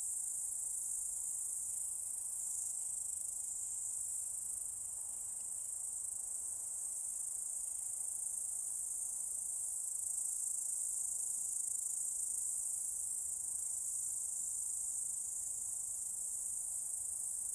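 Steady, unbroken high-pitched chirring of a chorus of crickets.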